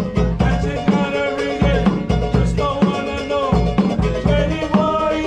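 Live Cook Islands band music: a large skin drum beaten with sticks in a steady beat, a strummed ukulele and a man singing.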